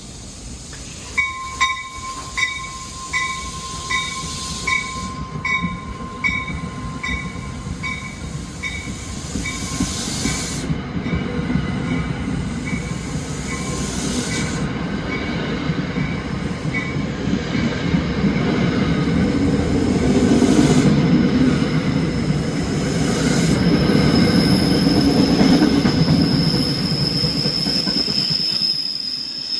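A train passing through a station. A bell strikes a little faster than once a second for the first fifteen seconds or so, while the train's rumble builds. Near the end, a steady high-pitched wheel squeal rides over the rumble before it fades.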